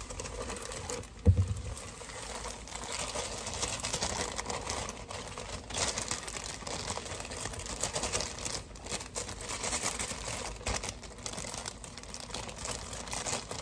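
Plastic cake-mix bag crinkling and rustling as it is squeezed and shaken out over a bowl, the dry mix pouring into it. A short thump about a second in.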